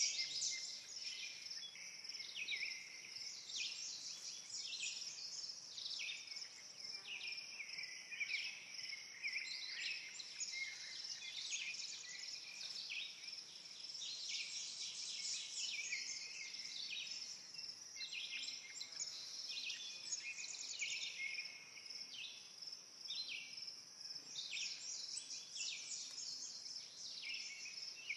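Woodland songbirds singing, several overlapping short phrases repeating all the way through, over a steady high hiss.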